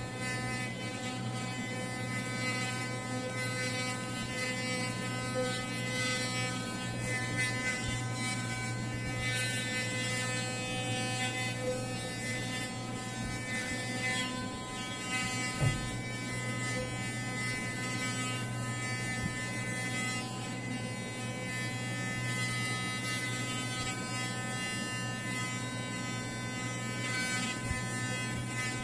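Electric toothbrush buzzing steadily while brushing teeth in the mouth, with one brief knock about halfway through.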